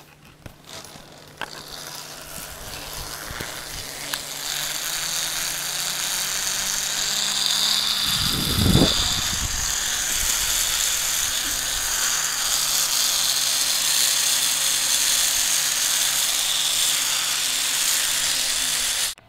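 Zip line trolley pulleys running along the steel cable: a steady whir with rushing hiss that builds over the first few seconds and then holds. There is a brief low thump about eight and a half seconds in, and the sound cuts off suddenly near the end.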